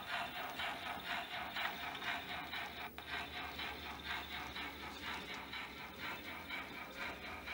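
Model steam train running along the layout track: a rapid, even mechanical rattle from the locomotive's running gear and the coaches' wheels, over a low steady hum.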